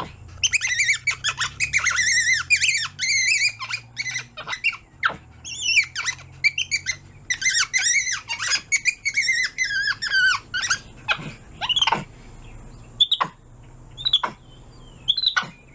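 Tufted capuchin monkey calling: a run of high-pitched, warbling squeals and chirps, then a few short separate calls near the end.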